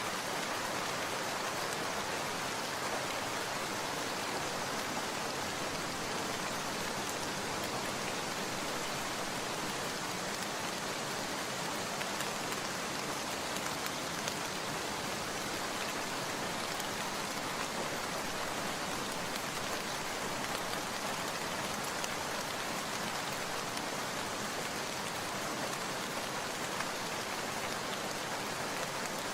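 Steady rain falling, an even hiss of many drops that holds level throughout.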